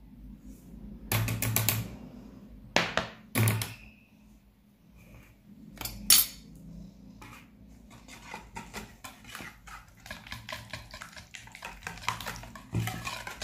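A few sharp clinks and knocks as a small ceramic bowl is tapped against a plastic mixing bowl and its wire whisk to tip out semolina, then set down. From about eight seconds in, a wire whisk beats batter in the plastic bowl with a fast run of small clicks.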